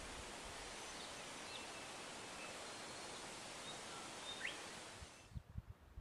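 Steady outdoor bushland ambience, an even hiss with a few faint, short bird chirps. About five seconds in it drops away to a much quieter background with a few low thumps like wind on the microphone.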